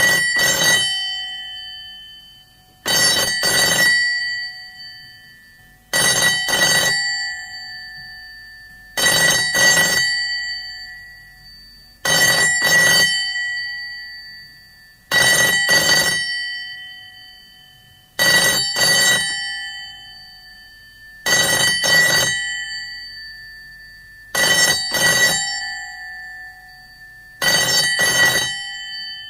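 GPO Bell No. 64, a large external wall-mounted telephone extension bell with big gongs, ringing in double rings: two short bursts about every three seconds, ten pairs in all, the gongs ringing on and dying away between pairs.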